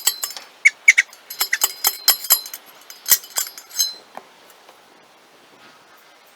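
A rapid, irregular series of sharp clinks and rattles, stopping about four seconds in.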